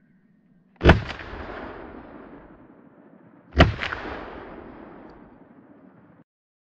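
Two gunshots from a hunting gun about three seconds apart, each followed by an echo that fades over about two seconds. The sound cuts off suddenly shortly before the end.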